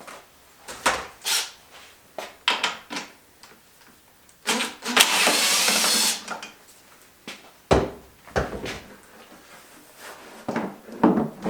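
Tools and parts being handled while working on a dirt bike: scattered clicks and knocks, a rasping hiss lasting about a second and a half near the middle, and a dull thump soon after.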